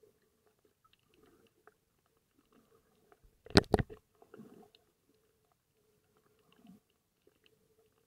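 Underwater recording: faint scattered clicking and crackling over a faint steady hum, broken about three and a half seconds in by a short, loud cluster of sharp knocks.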